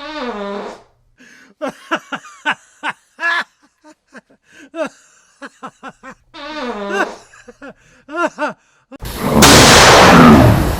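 A voice groaning, with a run of short grunting and mumbling noises, then a loud rush of noise about nine seconds in.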